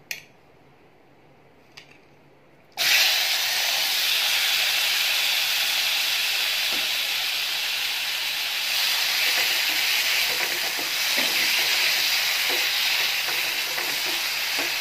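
Marinated chicken pieces going into hot oil in a nonstick frying pan: loud sizzling starts suddenly about three seconds in and carries on steadily as the pieces are stirred with a wooden spatula.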